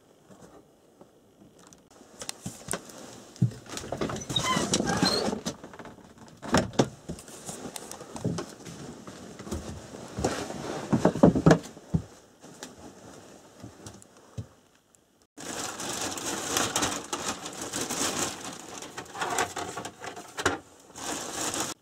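Footsteps and gear handling in crusted snow, irregular crunches and knocks, with a few short high whines from a dog about four seconds in; near the end, close rustling of a nylon jacket against the microphone.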